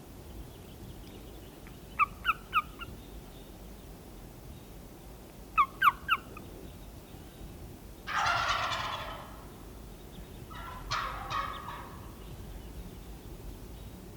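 A wild turkey tom gobbling twice, the first gobble loud and about a second long and the second fainter, after two quick sets of three high yelping notes in the style of a hen turkey, the kind of call used to bring a tom in.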